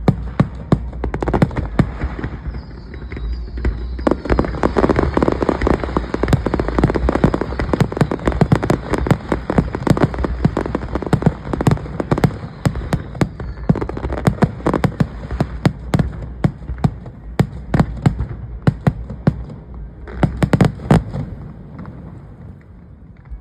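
Fireworks display: a rapid barrage of aerial shell bursts and crackling bangs. A dense cluster of loud bangs comes about twenty seconds in, then it dies away near the end.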